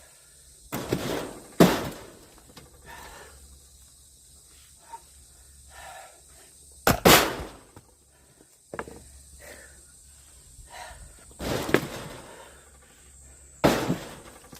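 Firewood being split by hand with an axe: about six sharp chopping blows at irregular intervals, a few of them in quick pairs, the loudest about a second and a half and seven seconds in.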